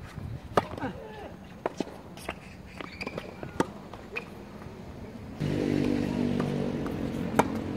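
Tennis ball struck by rackets in a singles rally: a serve, then sharp, separate pops of groundstrokes and bounces, with one louder hit near the end. About five seconds in, a steady low motor hum starts and carries on.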